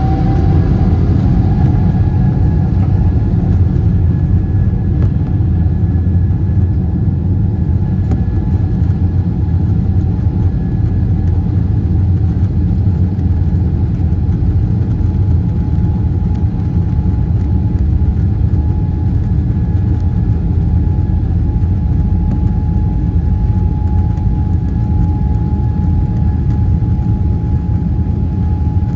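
Boeing 777-300ER's GE90 turbofan engines at takeoff thrust, heard inside the cabin. A loud, steady low rumble runs with a steady whine, which finishes rising and levels off about a second in.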